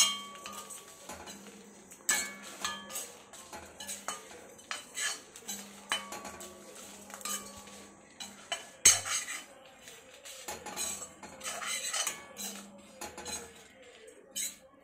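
Metal spatula scraping and clinking against a metal kadai while grated coconut, dried red chillies and whole spices are dry-roasted without oil. The strokes come irregularly, some with a brief metallic ring, and one sharp knock about nine seconds in is the loudest.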